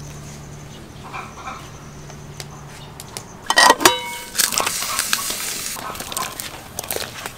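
A metal pot lid clanks and rings against an aluminium cooking pot about halfway through. A hiss of boiling water follows, with soft knocks and rustling as chunks of gourd, pumpkin and mushroom are tipped into the pot. A low steady hum runs under the first part and stops just before the clank.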